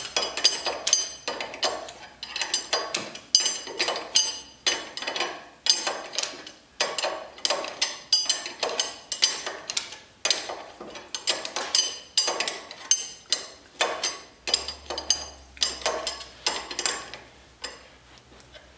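Metal tools and steel brake-mounting hardware clinking and tapping against each other: an irregular string of sharp metallic strikes, each with a brief ring, about two to three a second.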